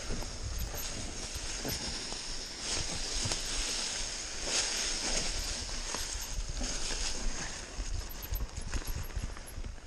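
Mountain bike riding fast downhill over a rough dirt trail strewn with dry leaves: the tyres rumble on the ground and the bike clatters over bumps.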